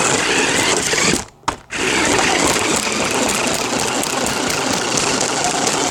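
Radio-controlled car driving, its motor, gears and wheels heard up close from a camera mounted on the car; the noise stops for a moment about a second and a half in, then starts again.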